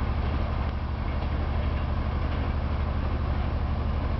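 Steady low mechanical drone with a fast, even throb and a hiss above it, like machinery running out of sight.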